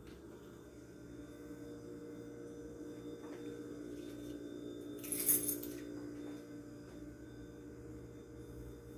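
Steady electrical hum with several held low tones, the unexplained drilling-like noise coming from inside a kitchen wall or ceiling. A brief, sharper rattle stands out about five seconds in.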